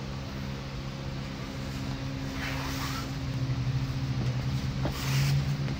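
A steady low hum runs throughout and grows louder partway through. Over it come two brief rustles as an elastic compression wrap is pulled around a waist, about two and a half seconds in and again near the end.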